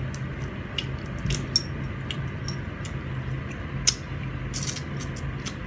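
Cooked prawns being peeled by hand and eaten: scattered short crackles and clicks of shell and chewing, the sharpest about four seconds in, over a steady low hum.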